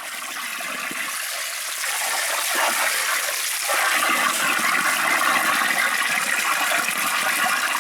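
Water rushing steadily, growing louder over the first few seconds.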